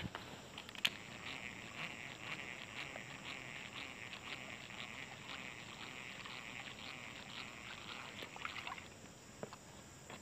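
Baitcasting reel being cranked to retrieve a lure, giving a steady raspy whir with rapid clicking that the angler likens to a Yamaha RX King two-stroke motorcycle. It stops about nine seconds in.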